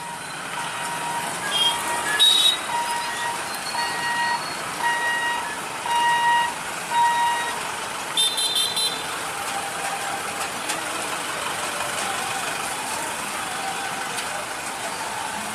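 Mixed road traffic of trucks, motorcycles and auto-rickshaws running, with a beeping alarm about once a second from about two to seven seconds in, typical of a truck's reversing beeper. Vehicle horns honk briefly about two seconds in and again around eight seconds.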